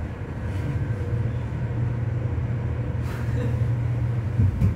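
Hyundai passenger elevator travelling down, heard from inside the car as a steady low rumble with a faint steady tone above it. A thump comes near the end.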